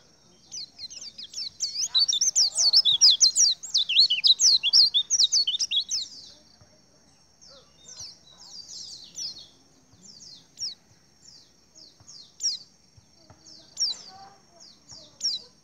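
A flock of white-eyes twittering together: a dense, overlapping burst of rapid high chirps for the first few seconds, thinning to scattered single chirps.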